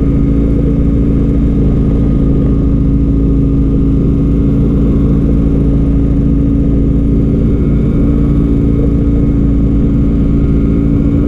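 An engine running steadily at a constant pitch, a continuous drone with no revving.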